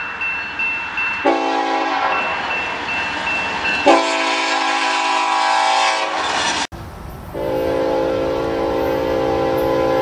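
Diesel locomotive air horn: a short chord blast about a second in and a longer one around four seconds, over a bell ringing rapidly at the start. After an abrupt cut, a second horn with a lower chord sounds steadily over a low rumble.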